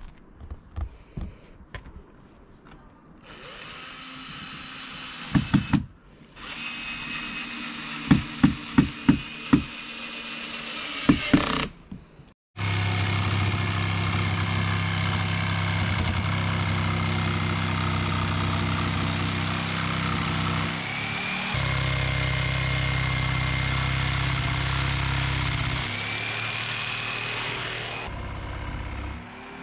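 Cordless drill-driver at work on wooden roof boards: knocks on the boards and short runs of the tool, then a long steady run of the motor with a high whine that shifts in pitch a couple of times near the end.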